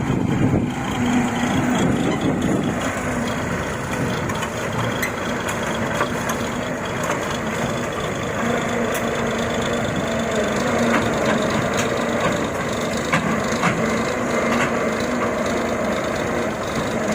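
Rice harvesting machinery running steadily, an engine with a dense rattling hiss over it and a low steady note that comes and goes.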